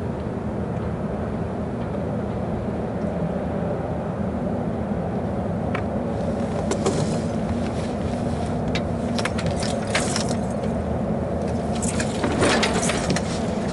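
Steady low rumble of a racing sailboat under way: wind and water noise on the camera microphone. Scattered clicks and rattles of deck gear and lines start about halfway through, and there is a louder clatter near the end as the sailor gets up and moves about the cockpit.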